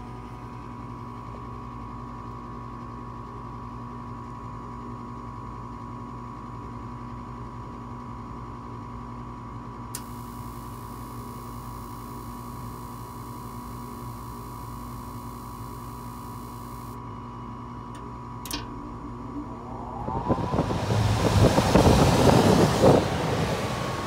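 Rheem gas furnace's draft inducer motor running with a steady hum while the furnace tries to light with its gas shut off. A faint high crackle from the spark igniter lasts about seven seconds from the middle, with sharp relay clicks from the control board. About twenty seconds in the hum stops and a louder rushing noise takes over near the end, as the failed ignition attempt ends in an ignition lockout.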